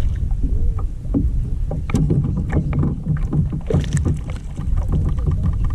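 A hooked largemouth bass splashing and thrashing at the side of a kayak as it is fought in and landed, a cluster of sharp splashes and knocks about two to four and a half seconds in, over a steady low rumble.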